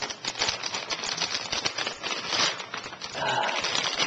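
Crinkling and crackling of a plastic bag being handled and cut open with a pocket knife, a rapid run of small crisp clicks.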